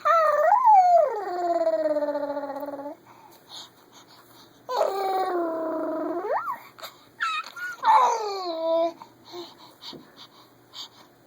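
Baby making long, drawn-out Chewbacca-like vocal calls: three calls of about two to three seconds each with short pauses between, the second ending in a rising squeal.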